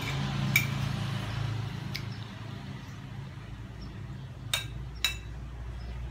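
Metal spoon clinking against a ceramic plate while eating, four short sharp clinks with two close together near the end, over a steady low background hum.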